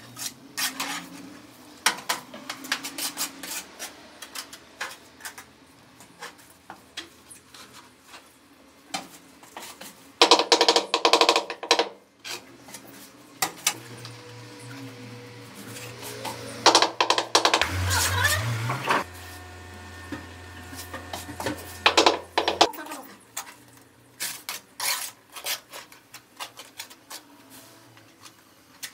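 Tile-laying work noise: scattered clicks, knocks and scrapes of tools, tiles and a mortar bucket, with dense clusters of rapid knocks about ten and seventeen seconds in. From about fourteen to twenty-two seconds in a low steady hum with some held tones runs under it.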